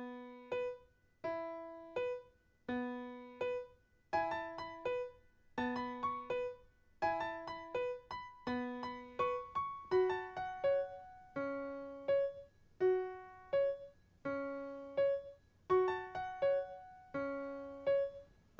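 Background keyboard music: a gentle melody of struck notes that ring and fade, in steadily repeating phrases.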